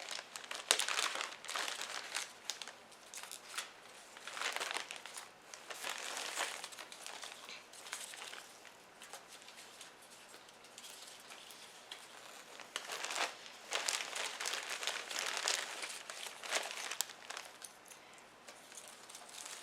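A bag of craft supplies crinkling and rustling as it is opened and rummaged through, with artificial floral picks handled, in irregular rustles, some louder than others.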